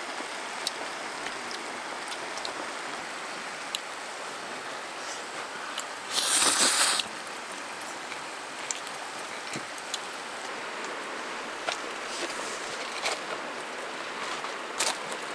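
Steady rushing of a shallow river flowing over stones. About six seconds in, a brief loud hiss lasting just under a second stands out, and a few light clicks and taps are scattered throughout.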